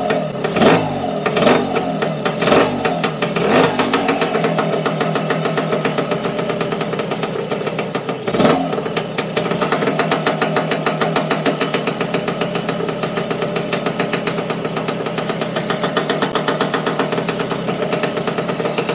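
Lambretta scooter's two-stroke single-cylinder engine running: several quick throttle blips in the first few seconds and one more about eight seconds in, then a steady idle.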